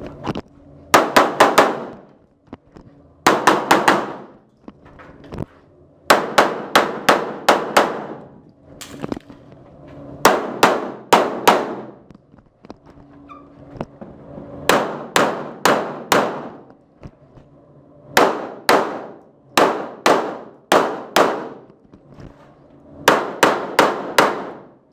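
Pistol shots from an STI Edge 9×19 mm competition pistol, fired in quick strings of about two to six shots with short pauses between strings. Each shot rings with echo in an indoor range.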